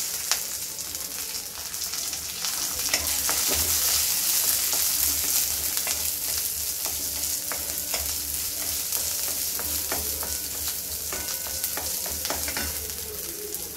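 Shallots, garlic and green chilli sizzling in hot oil in a kadai, stirred with a wooden spatula that clicks and scrapes against the pan again and again.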